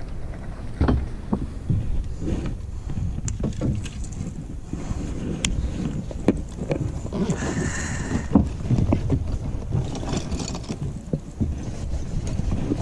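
Scattered knocks and bumps in a small wooden boat over a low rumble of wind on the microphone, with a whirring about a second long a little past the middle.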